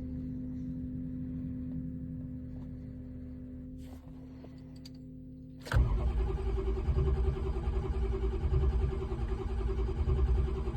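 A steady hum, then about six seconds in a car's starter motor begins cranking the engine with a fast, even churning rhythm. The engine turns over without firing: a crank-no-start condition.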